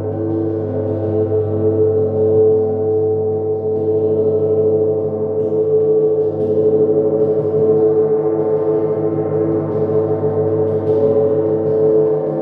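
Large hanging gong kept sounding with repeated soft mallet strokes: a sustained, swelling wash of many ringing overtones over a deep hum.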